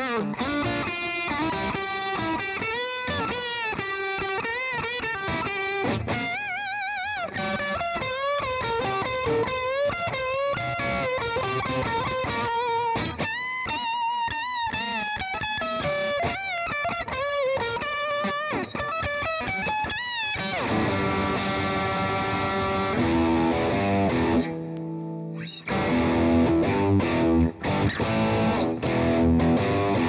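Squier Hello Kitty Stratocaster electric guitar playing a single-note lead line with string bends and vibrato. About twenty seconds in it switches to chords and a choppy, chugging rhythm part, with a brief break a few seconds later.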